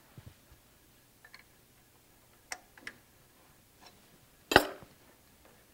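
Allen wrench clicking and clinking against the steel bolt heads as the bolts locking the hot stamp machine's head are loosened: several light metallic ticks, then one sharper clink a little more than four seconds in.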